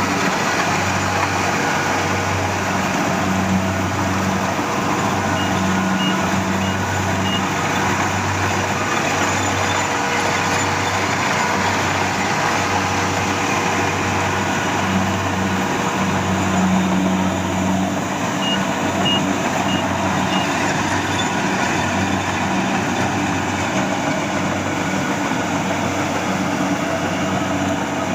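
Rice combine harvester's engine running steadily, with a slow, regular low throb about once a second. Twice, a short series of high warning beeps sounds over it.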